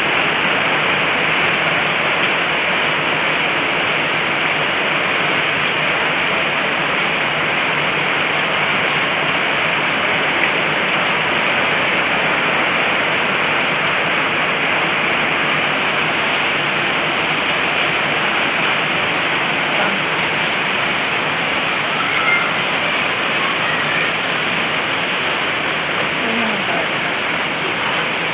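Heavy typhoon rain pouring down steadily onto roofs and pavement: a dense, even hiss at a constant level.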